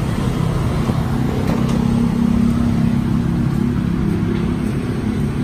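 Street traffic: a motor vehicle engine running steadily with a low hum, over the general noise of the road.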